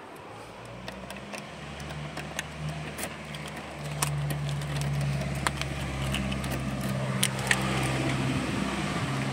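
Ice cream van's engine running: a steady low hum that grows louder about a second in and again about four seconds in, with a few sharp clicks over it.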